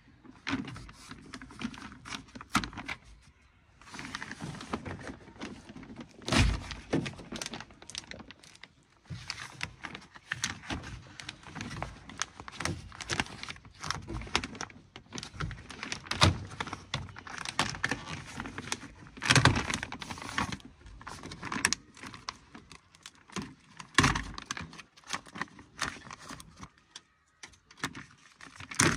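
Plastic sheet being peeled off a car door's inner panel, crinkling and pulling away from the black sticky sealant, with irregular rustling and clicks of handling throughout and a few louder knocks against the metal door.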